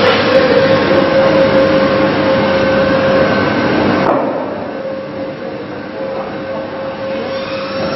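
Steady machine noise from factory equipment: a hiss with a held hum underneath. About four seconds in, the upper part of the noise drops away suddenly and it gets quieter.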